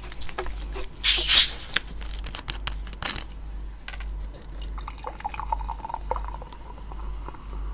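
Plastic Coca-Cola bottle cap twisted open with a sharp fizzing hiss about a second in. Cola is then poured into a glass mug, the pouring sound rising in pitch as the mug fills.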